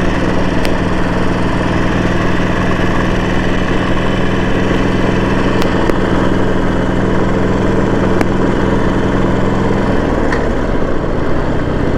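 Harley-Davidson Sportster 1200's air-cooled V-twin engine running steadily while riding, heard from on the bike. Its pitch drops about ten seconds in as the engine speed falls.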